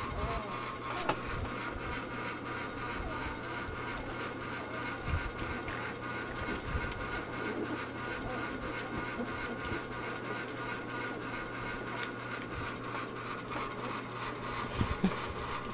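Electric fan running with a steady hum and a fast, even ticking rattle, a sound the owner takes as a sign that the fan is dying.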